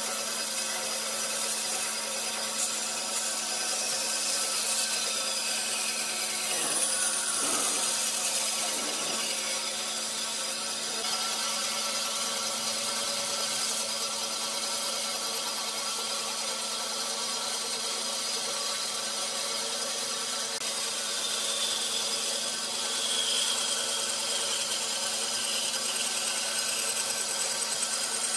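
Band saw running steadily with its blade cutting through a thick pine board along a curved line, a constant motor hum under the cutting noise. A couple of whines slide downward in pitch during the cut.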